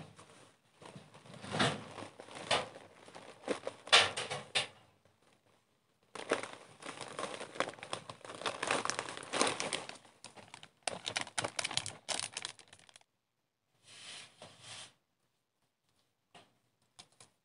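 Footsteps crunching on a dry, rocky mountain trail, in four spells of steps with short pauses between them.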